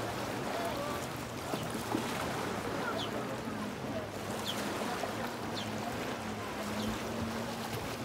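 Small sea waves washing onto a pebble shore, with a steady low hum underneath.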